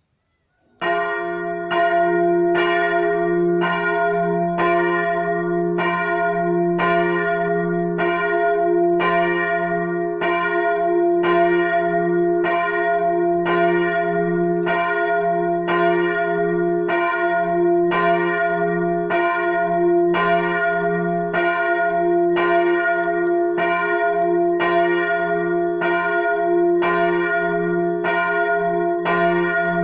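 The largest church bell (bell 1, tuned to f') swinging and ringing alone, beginning about a second in and then struck about once a second in an even rhythm, each stroke ringing on into the next. This is the single big bell rung half an hour before the service.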